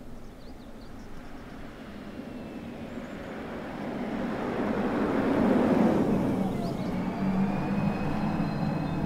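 Audi A6 e-tron concept electric car passing by, mostly tyre and road noise with no engine sound, swelling to a peak about five to six seconds in and then easing. A steady hum with a faint high whine comes in near the end.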